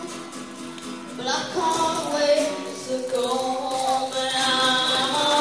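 A boy singing into a microphone to his own acoustic guitar, holding long notes.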